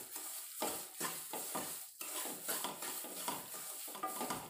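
Wooden spatula scraping and stirring semolina around a stainless steel kadhai in repeated strokes, with the ghee sizzling under it. The ghee is starting to separate and the semolina is turning light brown, the sign that it is nearly roasted.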